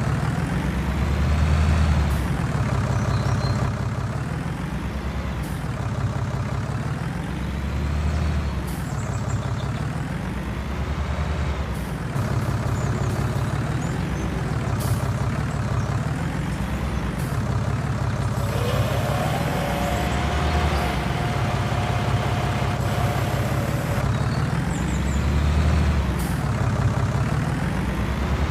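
Diesel tractor engine working hard, its pitch rising and falling every few seconds as it surges. A steady higher tone sounds for a few seconds about two-thirds of the way through.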